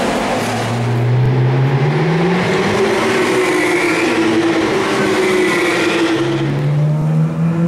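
Ferrari LaFerrari's V12 engine running at low revs, its note rising over the first two seconds, easing back, then climbing again near the end.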